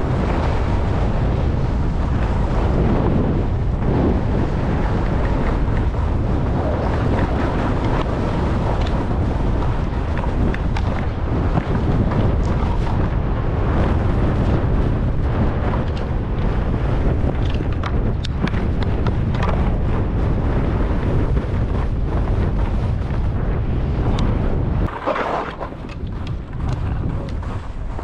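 Wind rushing over an action camera's microphone as a skier goes fast downhill, with skis hissing and scraping on snow. About three seconds before the end, the heavy low wind rumble drops away abruptly and the scraping of skis on snow stands out more.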